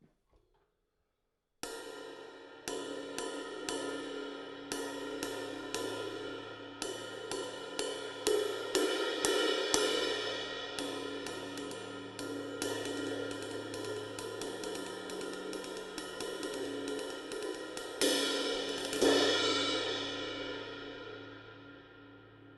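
Zildjian 22-inch Trans Stamp ride cymbal struck repeatedly in a ride pattern, each stroke sharp over a shimmering wash that builds. There are two heavier hits about three quarters of the way through, after which the cymbal rings on and slowly fades.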